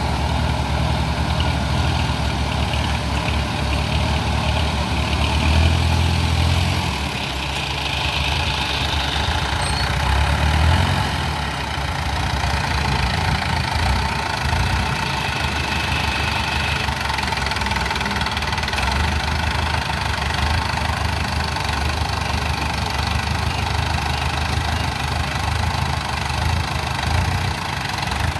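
Diesel engine of a Kubota DC70 Plus combine harvester running steadily, swelling louder twice in the first half.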